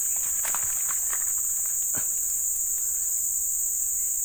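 Steady, high-pitched chorus of insects shrilling without a break, with a few faint clicks under it.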